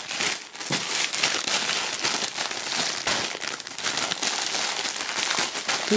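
Clear plastic bag crinkling continuously as it is handled and squeezed, with many small crackles.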